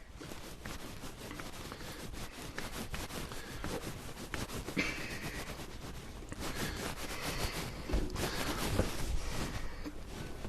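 Hands kneading and pressing soft dumpling dough into a loaf in a bowl: a continuous, irregular rubbing.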